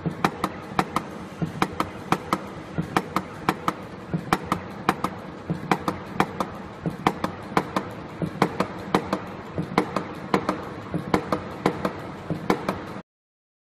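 Eagle EA-150CP automatic tape cutting and punching machine running. It makes a rapid series of sharp clacks, about three a second and some in quick pairs, over a steady motor hum as it feeds and cuts ribbon tape. The sound stops abruptly near the end.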